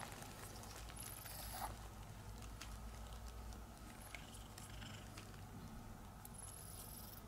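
Quiet handling noises while a weak cat is fed wet food from a syringe: a few faint clicks and small rustles, one slightly louder about a second and a half in, over a low steady hum.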